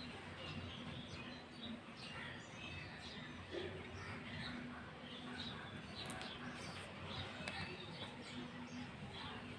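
Small birds chirping outdoors: a scatter of short, high calls throughout, over a faint steady low hum.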